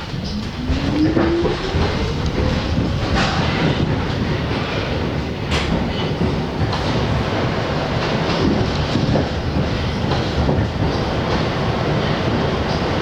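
R62 New York City subway train accelerating: its motor whine rises in pitch over the first couple of seconds, then the train runs on with a steady rumble and the clickety-clack of wheels over rail joints.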